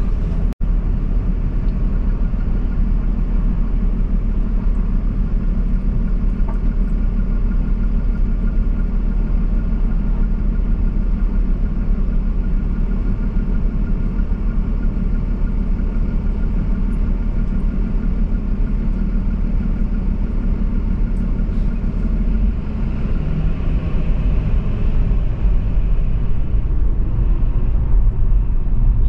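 Steady low rumble of a car driving on city streets, with a momentary dropout just after the start and growing louder over the last several seconds.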